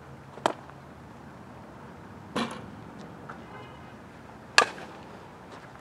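Softballs smacking into a leather fielder's glove: three sharp pops about two seconds apart, the last the loudest.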